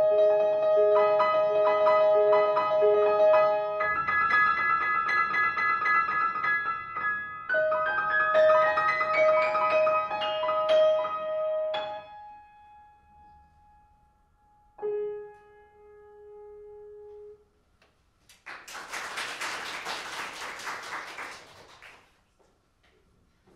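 Grand piano playing a classical solo piece, with a quick rising run before it breaks off; after a pause a single quieter note is held to end it. An audience then claps for a few seconds.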